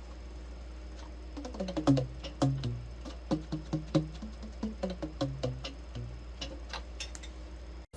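Yanagisawa Prima T-50 tenor saxophone keys worked without blowing: a quick irregular run of clicks, each with a short low pitched pop from the pads closing, the pitch changing from key to key, over a steady low hum.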